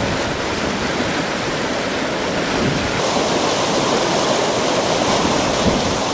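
Floodwater in a swollen creek rushing steadily, a loud unbroken noise of fast-moving water.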